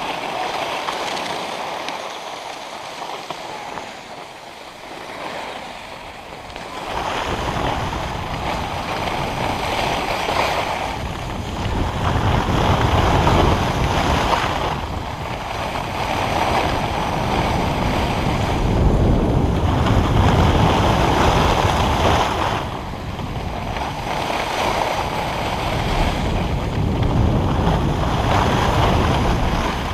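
Skis scraping over packed snow in a hiss that swells and fades with each turn, with wind rumbling on the microphone once speed picks up about seven seconds in.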